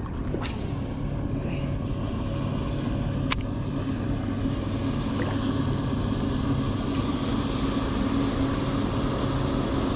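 Motorboat engine in the channel, a steady low drone that slowly grows a little louder. Two sharp clicks, one just after the start and one about three seconds in.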